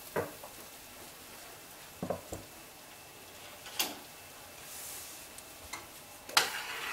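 Light knocks and clicks of kitchen utensils being handled on a counter, including a sharp metallic clack as a metal canning jar lifter is set down about four seconds in. A louder knock comes near the end. A faint steady hiss runs underneath.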